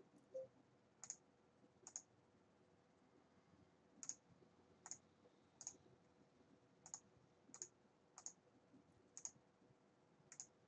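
Faint, sharp computer mouse clicks, about ten at irregular intervals over quiet room tone, with a short low blip just after the start.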